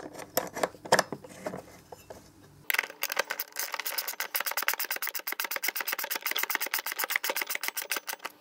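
T25 Torx driver turning small bolts into an aluminium bracket: a few separate metal clicks, then about a third of the way in a fast, even clicking that runs on steadily.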